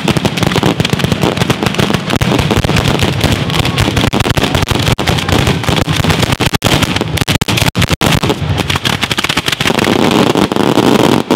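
Ground-level firework battery (batteria alla bolognese) firing: a dense, unbroken rattle of firecracker bangs and crackles.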